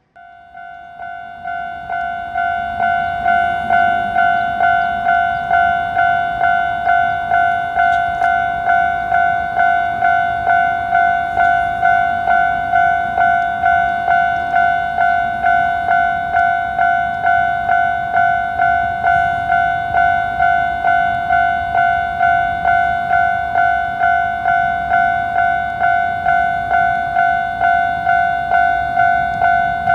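Japanese level crossing's electronic warning bell ringing its 'kan-kan' strikes about twice a second. It swells over the first few seconds, then holds steady over a low background rumble.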